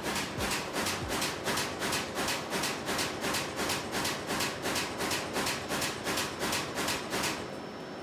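Konica Minolta bizhub press production printer making a rapid, even clicking, about four clicks a second, while it warms up after a restart; the clicking stops abruptly about seven seconds in, leaving a steady machine hum. It is a noise the owner has never heard from this printer before.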